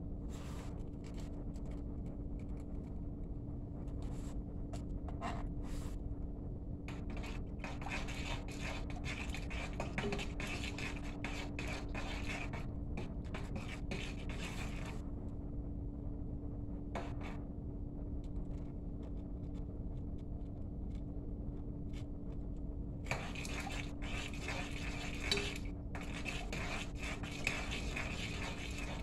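A utensil scraping and stirring in a container: two long stretches of quick scratchy strokes, over a steady low hum.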